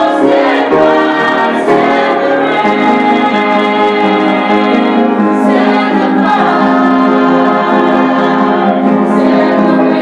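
Small vocal ensemble of mostly women's voices singing a gospel song through microphones, holding long sustained chords.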